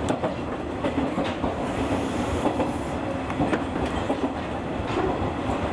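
201 series electric train running along the track, heard from the driver's cab: a steady running noise with wheels clicking over rail joints now and then.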